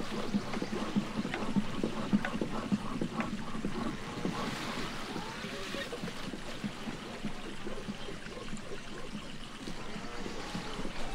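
A cloth-wrapped wooden roller rocked back and forth under a heavy block worked by bare feet, pressing the cloth. It makes a steady rolling, grinding noise with many small irregular knocks in the first few seconds.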